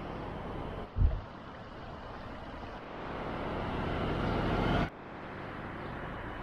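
Outdoor rushing noise, as of passing traffic or wind on the microphone. It swells toward a peak and cuts off abruptly just before five seconds, with a single knock about a second in.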